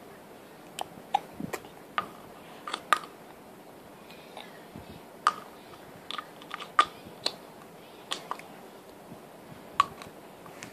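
Small purple plastic spoon clicking and tapping against a clear plastic cup as a toddler stirs and pokes it about: irregular sharp clicks, with a pause of about two seconds near the middle.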